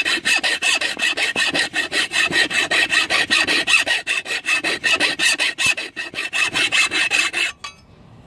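Metal hand file scraping back and forth in quick, even strokes along the steel edge of a lawn mower blade, sharpening it, with a steady high ring from the blade. The filing stops abruptly shortly before the end.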